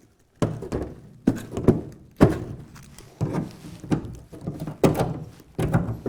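Scraper knocking and scraping against a Land Rover Series 3 aluminium rear tub, prying off heat-softened body filler. About nine irregular knocks and scrapes, one or two a second.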